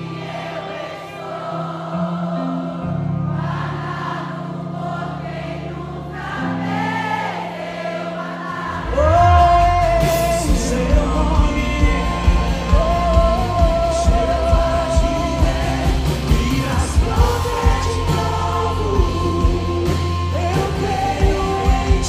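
Live worship song: a male lead singer with backing vocalists over an electric band. About nine seconds in, the fuller band with a steady beat comes in and the music grows louder.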